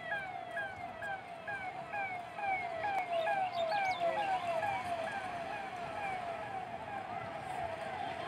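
Electronic vehicle siren sounding a repeating falling yelp, about two to three short downward sweeps a second.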